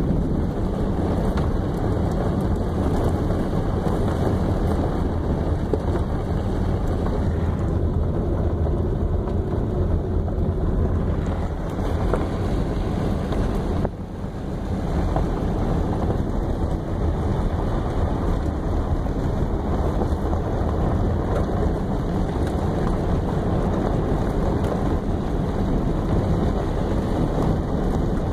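Steady wind rush and road noise in a moving car, with a low rumble of wind buffeting the microphone and a brief dip about halfway through.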